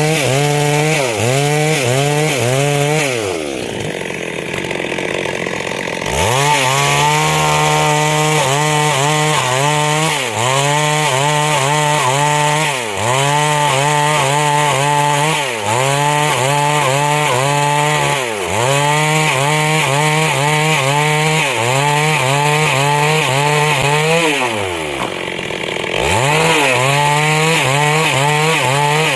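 Chainsaw running at high revs, cutting through wood, its engine note sagging and recovering every few seconds. Twice it drops back to idle for a couple of seconds, a few seconds in and again near the end, before revving up again.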